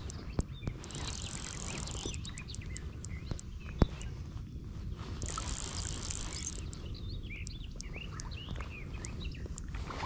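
Fly reel's click drag buzzing in two short runs as a hooked fish pulls line, over birdsong and a low wind rumble on the microphone. A single sharp knock comes about four seconds in.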